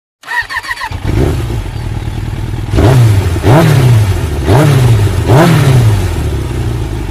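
Motorcycle engine idling and blipped four times in quick succession, each rev rising and falling in pitch, then settling back to idle.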